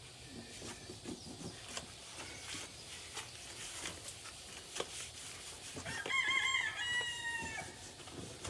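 A rooster crowing once, about one and a half seconds long, wavering at the start and then held with a slight fall in pitch, amid faint clicks and rubbing.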